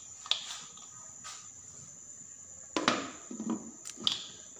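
Aluminium pressure cooker lid being fitted and closed: a few short metal knocks and clatters, the loudest a little under three seconds in, over a steady thin high-pitched tone.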